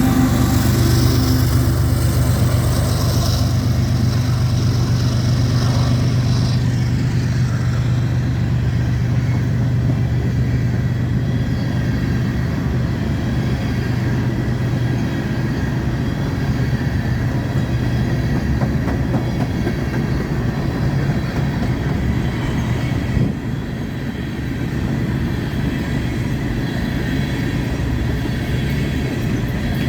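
Empty coal train rolling past: steel wheels running and clattering on the rails, with a low diesel locomotive drone that fades out about halfway through.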